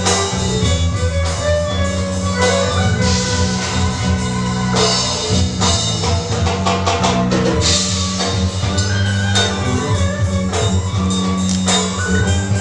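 Instrumental music with held low bass notes under a steady beat of frequent drum and percussion strikes.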